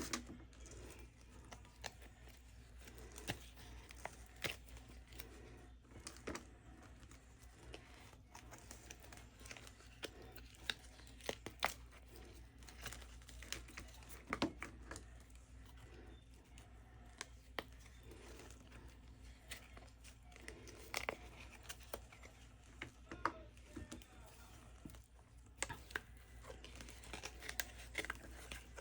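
Silicone molds being flexed and peeled off cured resin light-switch and outlet covers: faint, scattered clicks and rustling throughout.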